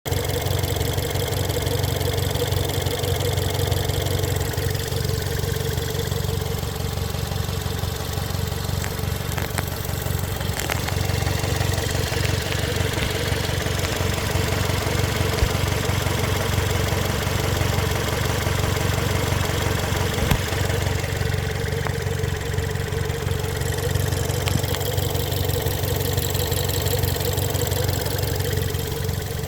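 2013 Ford Escape's 1.6-litre EcoBoost four-cylinder engine running steadily at idle, a continuous drone with a steady higher tone over it and a few faint clicks. It makes a running noise that the owner calls weird.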